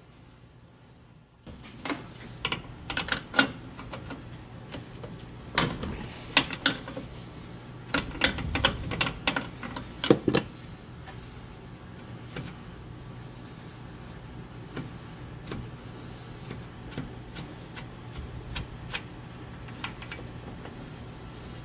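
Clicks, knocks and rattles of radiator hoses and cooling-line fittings being handled and worked loose by hand, thickest in the first half and sparser later, over a steady low hum.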